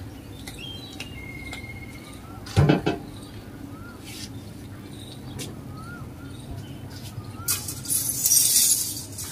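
Birds calling, one repeating a short rising-and-falling chirp every two to three seconds and another giving a held whistled note early on. A loud sharp thump comes about two and a half seconds in, and a burst of rustling hiss comes near the end.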